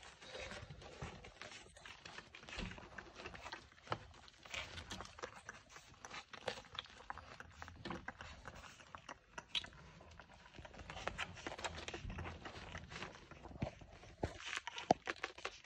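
Month-old French bulldog puppies nursing from their mother: irregular small wet smacks, clicks and rustles as they suckle and shift about on puppy pads.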